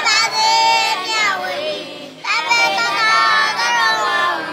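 A voice chanting a Buddhist chant in a sustained, melodic sung style, pausing briefly about two seconds in and then going on.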